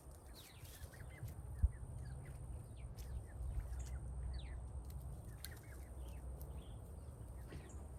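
Small birds chirping in many short, quick downward-sliding notes over a low rumble, with a single sharp knock about one and a half seconds in.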